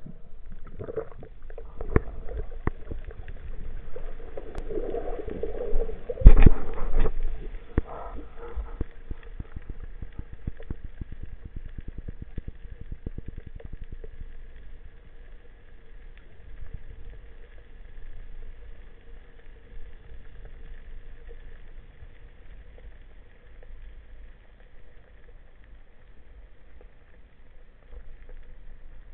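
Underwater sound picked up through a speargun-mounted camera's housing: a low rumble with many scattered clicks and knocks, thickest in the first ten seconds and thinning out later, and one loud thump about six seconds in.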